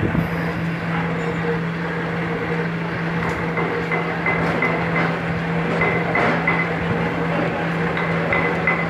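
Milling machine running steadily with its end mill cutting a keyway slot into a metal shaft: a constant motor hum under the noise of the cut, with a faint high-pitched tone coming and going in the second half.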